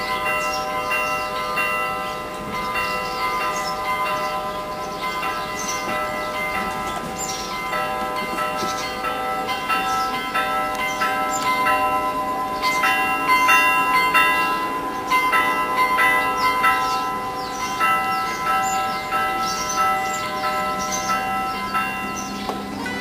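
Church bells ringing, stroke after stroke, the tones overlapping and ringing on.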